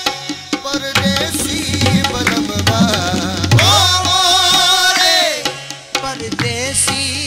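Qawwali music: rapid tabla drumming under a melody, with one long held, wavering note about halfway through.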